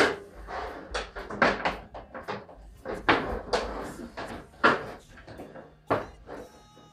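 A series of hollow knocks and clunks, about seven or eight spread unevenly, as an over-the-range microwave's metal case is swung up off its wall bracket and bumped into place against the cabinet above.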